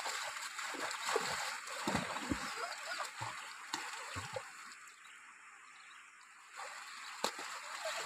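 Water splashing and sloshing as people wade through a shallow river, with several heavier splashes between about two and four seconds in. It eases off around the middle and picks up again near the end.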